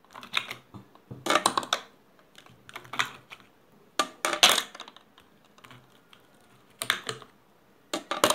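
Ice cubes dropped one by one into cold milk in a steel blender jar: several short clusters of clinks and clicks as the cubes knock against each other and the jar.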